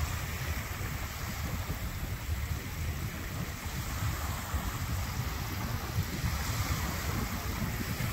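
Wind rumbling on the microphone over a steady wash of choppy water.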